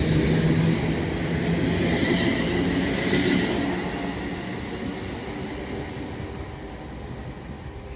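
Two coupled Class 350 Desiro electric multiple units moving through the station, with a rumble of wheels on track and a steady electric whine. The sound is loudest in the first few seconds and fades gradually as the train draws away.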